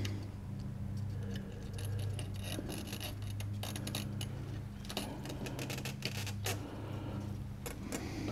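Faint clicks and scraping of a replacement DS12887 real-time clock module's pins being worked and pressed into its motherboard socket by hand, over a steady low hum.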